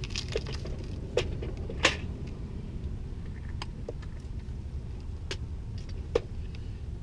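Sharp clicks and small knocks of hand tools and wire connectors being handled during wiring work, the loudest just under two seconds in, over a steady low rumble.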